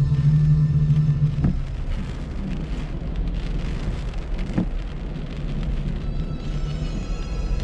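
Steady rain hiss. A held low music note ends about a second and a half in, and faint music tones carry on underneath.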